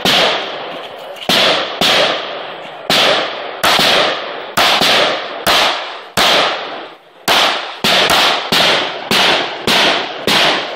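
Handgun fired in a string of about fifteen shots, unevenly spaced from about a third of a second to a second apart, each followed by a long echoing tail.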